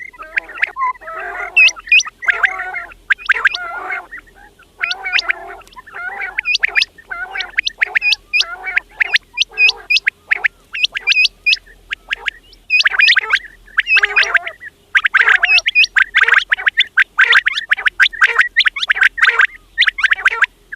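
Quails calling over and over: quick bunches of short, high, hooked whistled notes, mixed with a lower throaty chattering.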